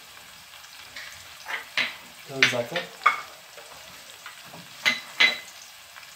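Grated tomato and tomato paste sizzling in hot oil in a frying pan, a steady hiss broken by a few sharp spits and pops.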